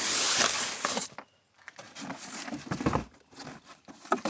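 Filament packing tape tearing off a cardboard box, loudest in the first second, followed by the rustle and scrape of the cardboard as the box is opened.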